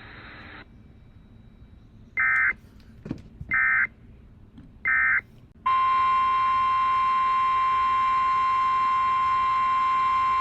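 Emergency Alert System alert start: three short bursts of digital data tones, the SAME header sent three times about a second and a half apart, then the long steady EAS attention tone begins a little past halfway and holds. A faint hiss cuts off just after the start.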